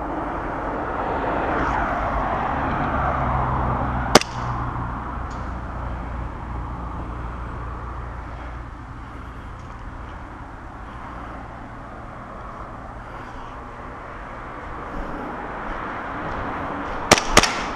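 Airsoft guns firing: one sharp crack about four seconds in, then a quick string of shots near the end. Under them runs a steady low hum that swells early on and fades out about three-quarters of the way through.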